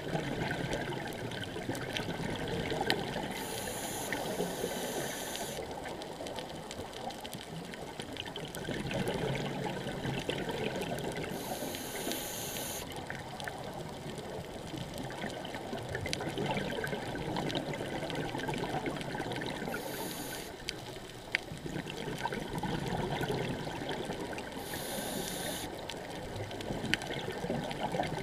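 Underwater sound of a scuba dive: a diver's regulator hissing briefly four times as they breathe in, with bubbling swells of exhaled air between, over a steady crackle of small clicks from the reef.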